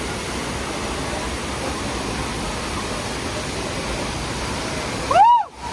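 Steady rushing of the Devkund waterfall, an even roar of falling water. Near the end it cuts out briefly under a short, loud whistle-like tone that rises and then falls in pitch.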